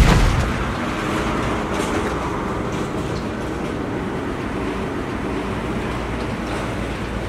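A single dull thump at the very start, a blow landing on a fallen fighter, followed by a steady rumbling background noise.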